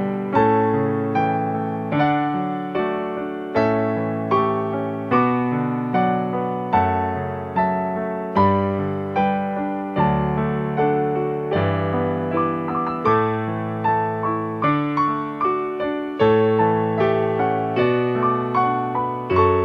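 Piano music: a steady run of struck notes, each fading out, with low bass notes under a gentle melody.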